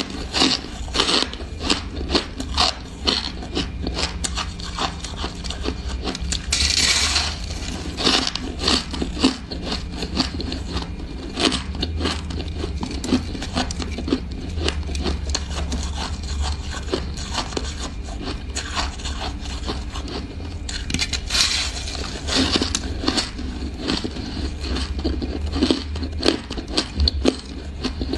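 Crunching bites and chewing of soft, frosty ice: a continuous dense crackle of many small crunches, with a steady low hum underneath.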